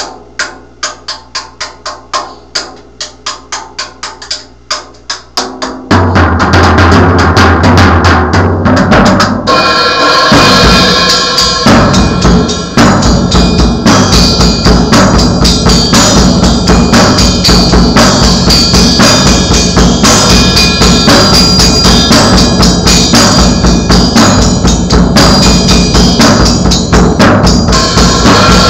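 Drum kit played with music: for the first few seconds, quiet evenly spaced ticks about three a second. About six seconds in, loud music with bass notes comes in, and soon after the full kit joins with bass drum, snare and cymbals hitting steadily.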